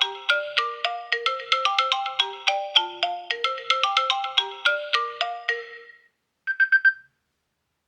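iPhone 15 Pro ringtone: a fast, repeating melody of short, bright pitched notes that fades out about six seconds in. It is followed by a brief burst of a few quick high notes, then silence.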